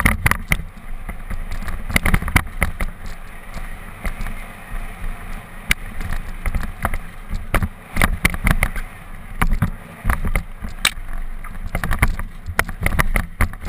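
Mountain bike descending a rocky dirt trail at speed: a steady low wind rumble on the camera's microphone, with frequent sharp rattles and knocks as the bike jolts over rocks and bumps.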